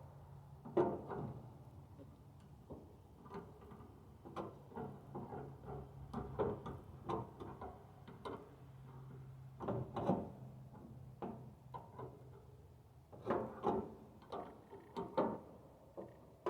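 Wrench tightening the sawmill's belt-tension adjuster, giving irregular metal clicks and clanks as the tension is taken up. A low steady hum underneath fades about nine seconds in.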